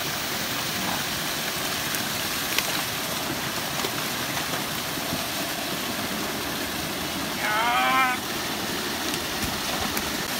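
Small waterfall pouring steadily over rocks into a stream pool. About three-quarters of the way through, a person's voice gives one short call over the water.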